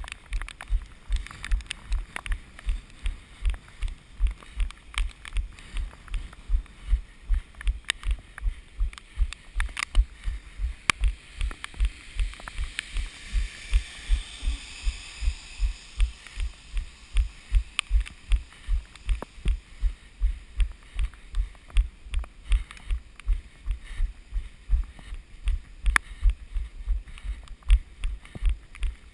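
A runner's footfalls as low, even thuds, about three a second, picked up through a GoPro action camera carried on the runner. A soft rushing hiss swells briefly near the middle.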